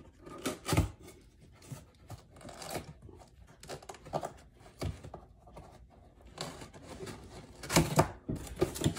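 Cardboard box being opened by hand: packing tape tearing and cardboard flaps scraping and rubbing in irregular short bursts, with a louder cluster near the end.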